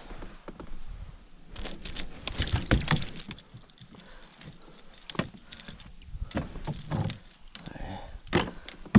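Irregular knocks and clatter of gear and paddle against a plastic kayak's hull as the kayak is handled on the water.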